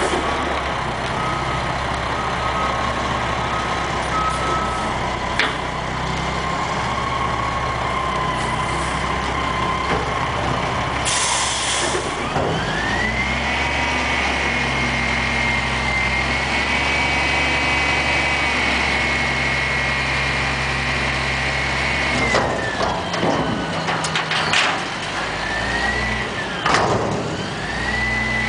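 Front-loader garbage truck's diesel engine idling, then a short hiss of air from the brakes. The engine revs up and a rising hydraulic whine holds steady for about ten seconds as the forks work. Then comes a run of metal clanks and bangs as the dumpster is lifted, with the whine rising and falling again near the end.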